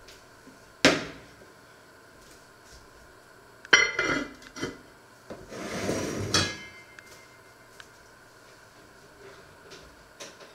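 Cookware clatter: a sharp knock about a second in, then a loud, ringing metal clank around four seconds as an enamelled cast-iron casserole lid is set down, followed by a longer rattling scrape as a pan of almonds is handled. A few faint clicks come near the end.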